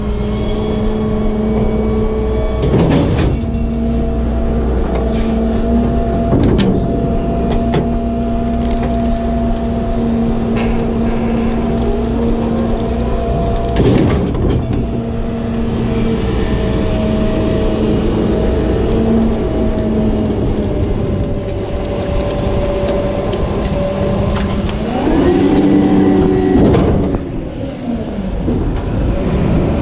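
EZ Pack rear-loader garbage truck running, its engine and hydraulics giving a steady pitched hum, with a few sharp metal clanks. About 25 seconds in the engine revs up, holds for a couple of seconds, then drops back.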